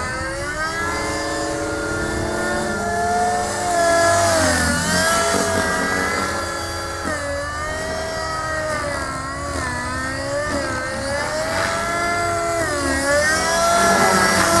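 Gaui NX4 radio-controlled helicopter in flight: a steady whine from its motor and rotors whose pitch keeps sliding up and down as it manoeuvres.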